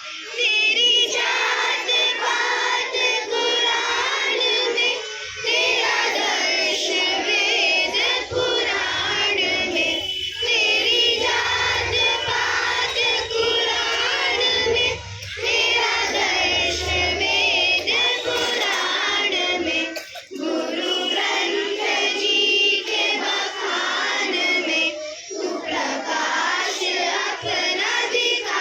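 Group of children singing a Hindi song together in chorus, the phrases breaking off briefly about every five seconds. A low deep note sounds under the voices in the middle.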